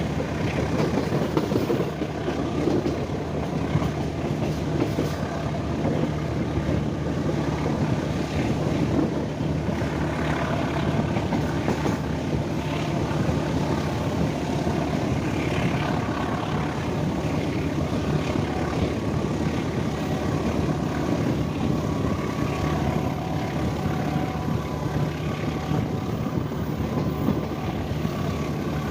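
CC 203 diesel-electric locomotive's diesel engine running steadily with an even, unbroken drone.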